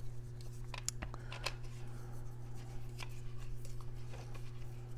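Faint scattered clicks and light scraping from hands handling a Byrna SD pepperball launcher fitted with its Boost 12-gram CO2 adapter, over a steady low hum.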